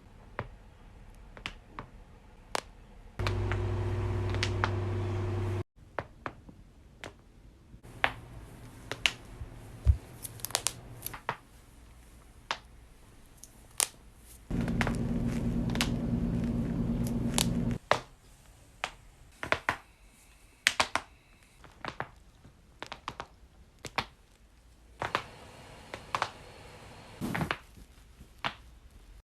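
Joints cracking and popping in a long string of sharp, separate clicks, a few of them loud. Twice a steady low electric buzz runs for a few seconds, once about three seconds in and again about fifteen seconds in.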